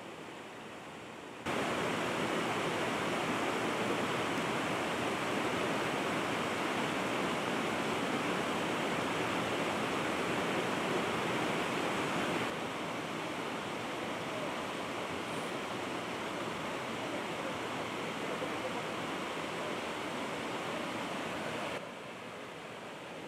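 River water rushing steadily over rocks. It gets abruptly louder about a second and a half in, then drops back in two sudden steps, around the middle and near the end.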